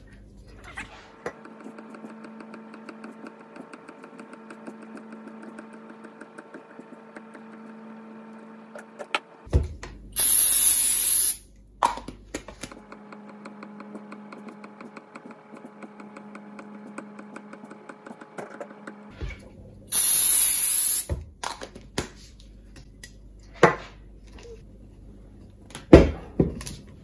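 Two hissing blasts from an aerosol can of superglue activator, each about a second and a half and about ten seconds apart, curing cyanoacrylate glue on the wire windings of a coil. A faint steady hum runs between the blasts, and there are a few sharp clicks near the end.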